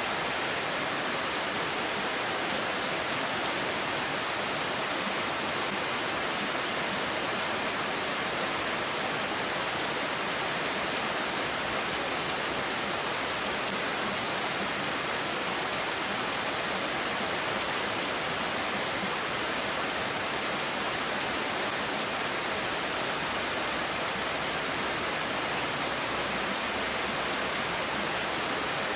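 Rain falling steadily: an even hiss that neither swells nor lets up.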